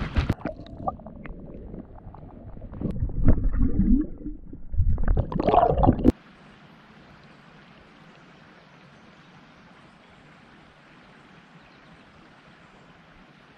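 Muffled underwater gurgling and sloshing as an action camera is dipped below the surface to release a smallmouth bass, with two louder surges of water near the middle. About six seconds in it cuts off suddenly to a faint steady hiss.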